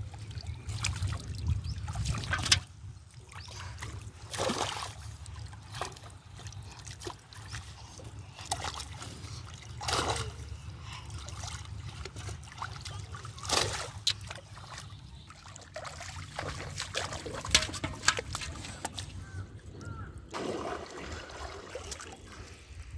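Shallow river water sloshing and trickling as someone wades and gropes in it with bare hands, with several sharper splashes spread through.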